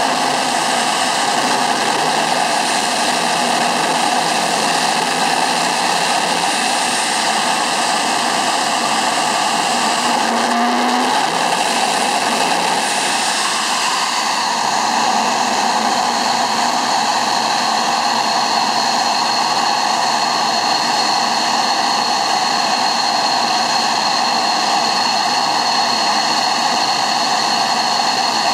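Mirage 2000D's SNECMA M53-P2 turbofan running steadily at ground idle: a loud, even jet hiss and whine, with a high whistle that becomes clearer about halfway through.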